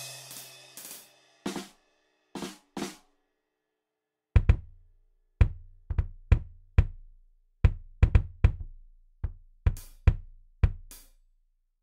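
Sampled acoustic drum kit (SM Drums in the Sforzando sampler) triggered from a DIY mesh-pad MIDI drum controller. A cymbal dies away among a few scattered hits, then after a short pause comes a slower run of about a dozen heavy drum strikes with a deep low end.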